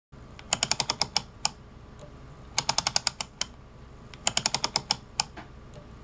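Keysight U1231A multimeter's rotary switch being cycled by a stepper motor, clicking through its detents in quick runs of about six to eight clicks. Three runs come roughly two seconds apart, over a faint steady hum.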